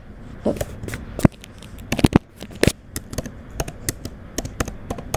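Typing on a computer keyboard: irregular key clicks, about three or four a second.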